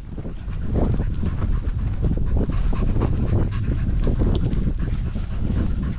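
Dogs panting and rapid irregular footfalls and thumps of running through long grass, over a low rumble of wind on the microphone.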